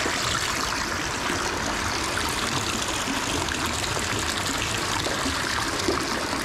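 A steady stream of water pouring from an inflow pipe into a round fish-rearing tank and splashing onto the water surface.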